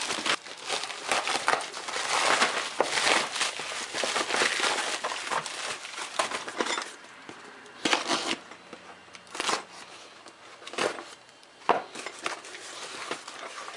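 A shipping package being opened by hand: packaging crinkling and rustling steadily for about the first half, then a handful of separate sharp rustles or knocks.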